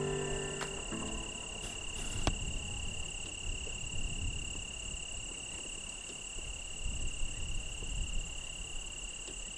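Insects calling steadily in grassland: a continuous high, shrill drone at two pitches, over a low rumble.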